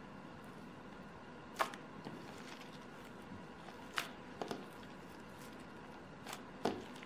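Hands kneading and squishing a fluffy shaving-foam slime, with about five short, sticky clicks spread over a faint background.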